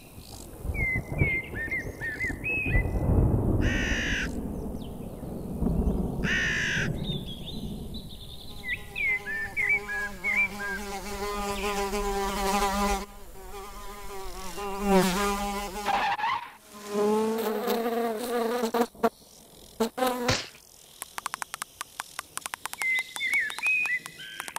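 A cartoon housefly buzzing, its pitch wavering up and down, through the middle and again in short bouts after, ending in a run of rapid small clicks. Before it, a rushing noise with small bird chirps and two short hissing bursts.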